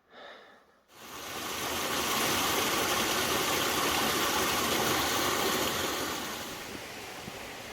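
Steady rush of falling water from a waterfall, coming in about a second in, loudest through the middle and easing off toward the end.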